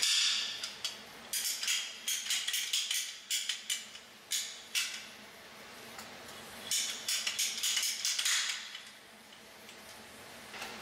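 Ratcheting PEX pipe cutter clicking as it is squeezed through red PEX tubing, in several runs of quick clicks.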